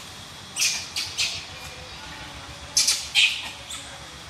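Short, harsh, high-pitched squeals or screeches from a troop of gray langurs: three quick calls about half a second in, then another cluster of three around three seconds in.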